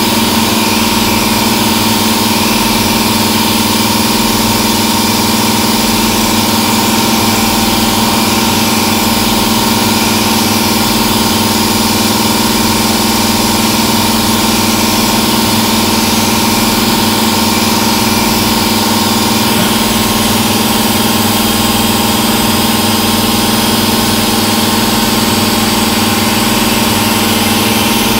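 CNC vertical mill (a 1995 Haas VF-3) with its spindle running as an end mill cuts into a metal block. The machining sound is steady and unbroken, a constant hum with a high whine and a hiss over the top.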